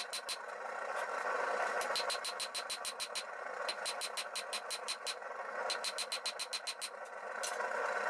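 Hand hammer striking red-hot steel on an anvil in quick runs of blows, about five a second, with short pauses between runs, while forging a knife blank. Under it the forge runs with a steady rushing noise, heard most plainly in the pauses.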